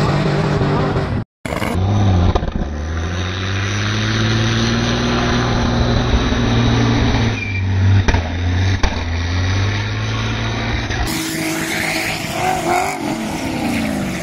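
Drift car engine revving hard, its pitch rising and falling as the tyres spin and squeal. The sound cuts out for a moment about a second in.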